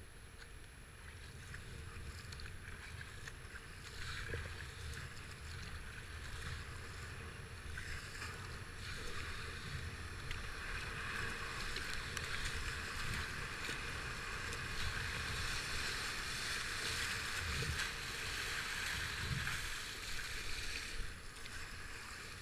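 Rushing river water around a kayak, getting louder about halfway through as the boat runs into whitewater rapids, over a low wind rumble on the microphone.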